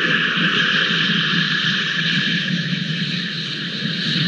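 Steady rushing noise of wind and rain on an outdoor camera microphone, even throughout with no distinct sounds standing out.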